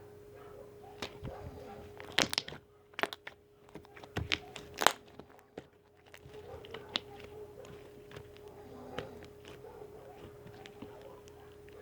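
Homemade slime being squished and poked by hand, with a cluster of sharp pops and clicks about two to five seconds in and softer crackling otherwise. A faint steady hum runs underneath.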